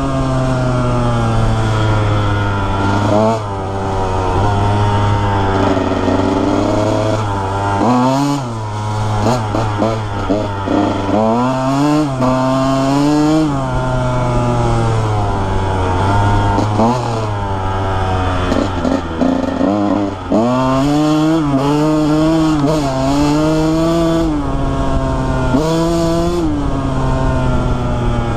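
2001 Honda CR125R's 125 cc two-stroke single-cylinder engine being ridden hard, its pitch rising and falling constantly as the throttle is worked, with several sharp drops and quick climbs as the throttle is chopped and reopened.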